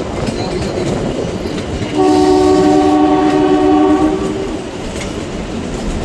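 Kalka–Shimla narrow-gauge toy train running with a steady rumble and clatter of wheels on rail. About two seconds in, its horn sounds for about two and a half seconds, a loud chord of several notes, then the running noise carries on.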